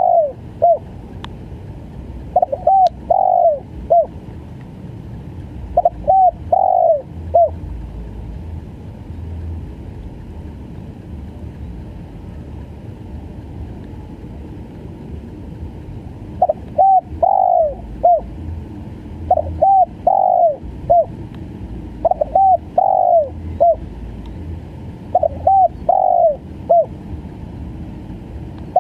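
Spotted dove (tekukur) cooing in repeated short phrases of several arching coos, in the broken, stuttering 'gagap' style. It pauses for about eight seconds midway, then calls again in four closely spaced phrases.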